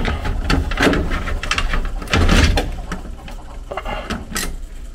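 Handling noise: irregular clicks, knocks and rustling as wiring and flexible metal conduit are moved by hand, the loudest burst a little past two seconds in, over a steady low rumble.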